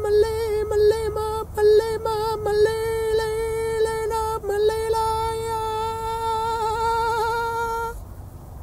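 A man singing wordless held notes in a high, clear voice, with quick turns between them and a wavering held note that stops about eight seconds in.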